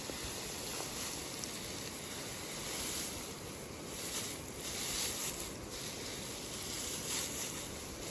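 Dry cut grass rustling and crackling as it is scooped and pressed together by hand into a bundle.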